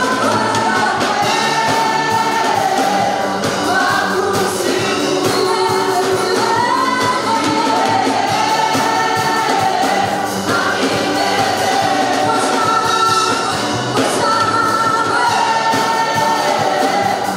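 A gospel praise-and-worship team singing together into microphones, with instrumental backing, at a steady level.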